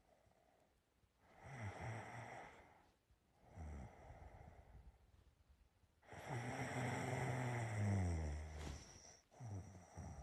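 A sleeping person snoring: two softer breaths in the first half, then a long, louder snore from about six to nine seconds in, and a short breath near the end.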